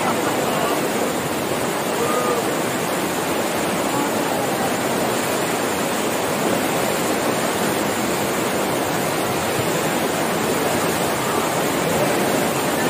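Steady rush of a fast, rain-swollen mountain stream pouring over rocks in white-water rapids.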